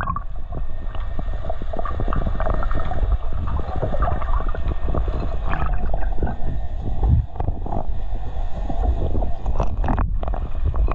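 Underwater sound picked up with the microphone below the sea surface: a steady muffled rush of water with many short clicks throughout.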